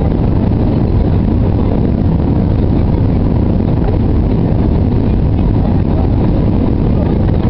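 Steady roar of a jet airliner's engines and airflow, heard inside the cabin on final approach just before touchdown. The noise holds level with no change or impacts.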